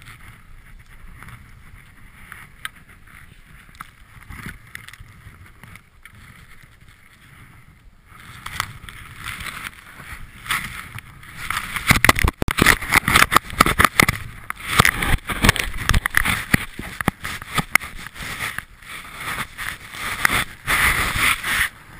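Deep powder snow scraping, crunching and packing against a helmet-mounted camera's housing as a skier stuck in a tree well struggles to get out. It is low for the first several seconds, then from about eight seconds in comes a dense, irregular run of rough scraping and knocks as the camera is pushed into the snow.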